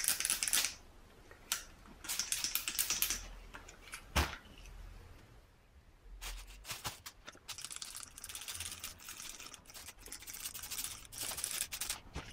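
Trigger spray bottle of degreaser squirting in groups of quick hissing spurts, with short pauses between the groups, as the cleaner is sprayed onto a throttle body inside a plastic bag.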